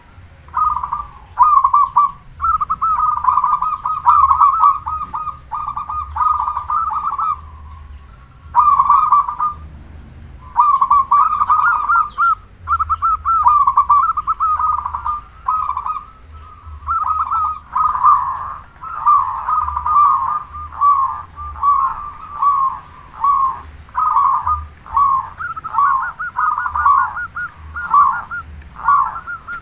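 Zebra dove (perkutut) cooing loudly over and over, in rolling, trilled phrases with short pauses between them.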